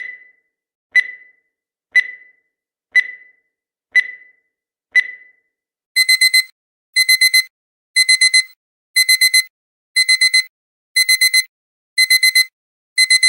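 Digital countdown timer beeping: one short high beep each second for the last seconds. About six seconds in, the time-up alarm starts, repeating a quick four-beep pattern once a second like a digital alarm clock.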